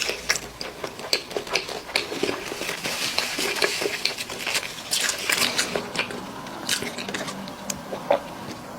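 Close-miked eating sounds: biting and wet chewing of braised chicken, a quick run of short clicks, smacks and crackles.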